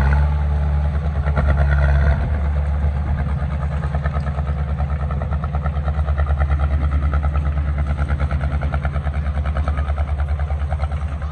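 Diesel engine of heavy earthmoving machinery running. About two seconds in its steady note changes, and it then runs with an even pulsing beat.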